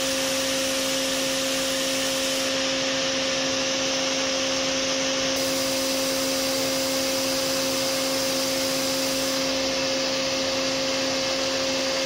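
Built-in motor spindle of a vertical machining center turning at 16,000 rpm, a steady tone over a constant hiss, as a 0.3–0.5 mm end mill semi-finishes a stainless steel (SUS 420) mold.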